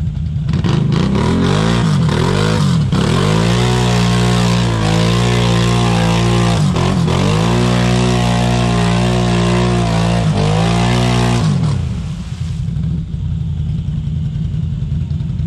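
ATV engine revving hard under load, its pitch dipping and climbing again several times, then dropping back to a steady low idle about eleven and a half seconds in.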